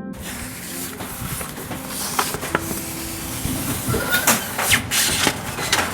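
Rustling and crinkling of a rolled paper poster and its wrapping being handled and unrolled, over a steady hiss, with sharp crackles that come thicker from about two seconds in.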